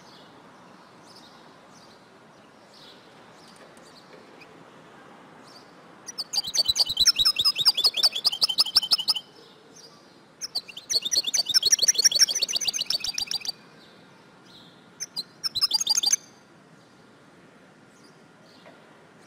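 European goldfinch twittering: faint scattered chirps, then loud rapid twittering phrases about six and ten seconds in, and a short third burst near the end.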